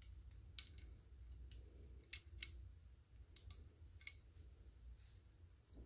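Near silence with about eight faint, short clicks and taps scattered through it, as a small black model-crane counterweight tray is turned over in the hands.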